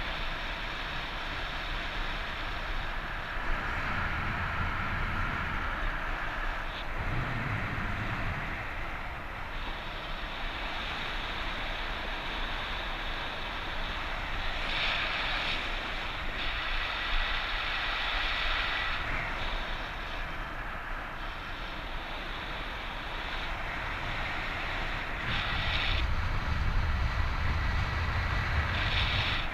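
Strong wind rushing over the microphone, a steady rush with low buffeting gusts now and then and the heaviest buffeting near the end.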